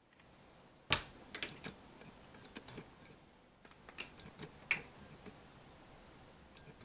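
Handling clicks and light knocks from a Samsung NX 60mm F2.8 macro lens turned over in the hands. There is a sharp click about a second in, and a few more scattered over the next four seconds.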